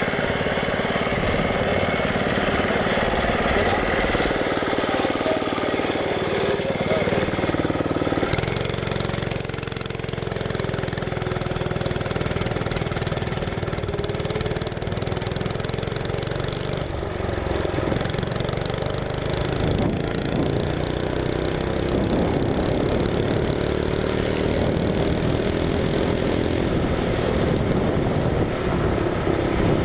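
Go-kart's small engine running through the whole stretch, its pitch rising and falling as the throttle is opened and eased off.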